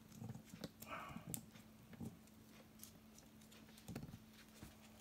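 Faint handling sounds of a speaker cable being knotted around a clip-on ferrite core: a few scattered light clicks and short rustles over a steady low hum.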